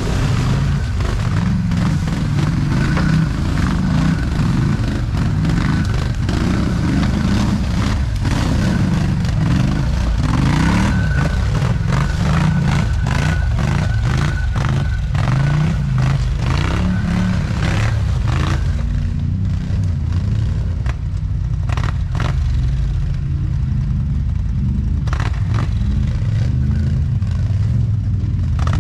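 ATV engines revving unevenly as the quads crawl up a rocky, muddy creek bed, with several sharp knocks through the middle and latter part.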